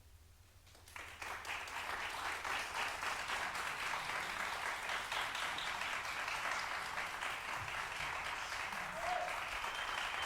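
Audience applauding, the clapping breaking out suddenly about a second in after a moment of near silence.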